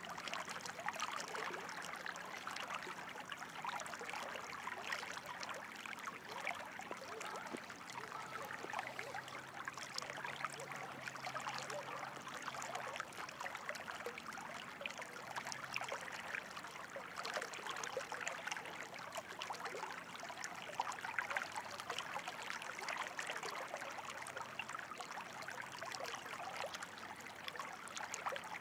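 Running water, a steady babble of many small splashes and trickles with no pauses.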